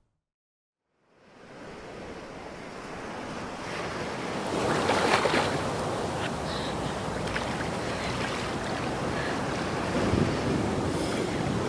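Sea surf washing in and out, fading up from silence about a second in and then holding steady.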